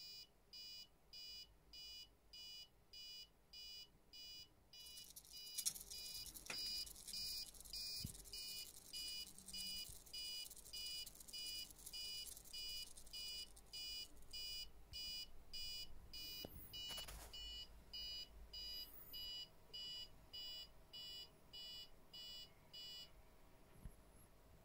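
Electronic level-crossing warning alarm from an N gauge model crossing, beeping about twice a second, that stops about 23 seconds in. From about 5 seconds in to about 17 seconds a whirring buzz and a few clicks join it: the crossing's micro servos swinging the gates closed.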